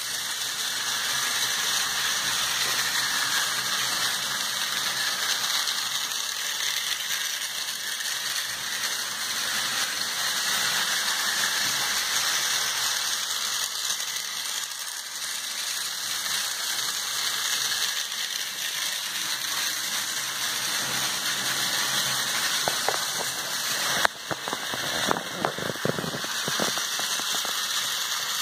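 Ferrorama toy electric trains with D-51 steam-locomotive models running on plastic track: a steady rattling whir of small motors and wheels going over the rails. A sharp click about 24 seconds in, then a few more clicks over the next few seconds.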